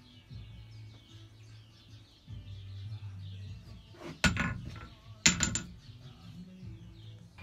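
Farrier's hammer striking a steel horseshoe on the anvil: one ringing blow about four seconds in, then a quick run of two or three ringing blows a second later, over a low hum.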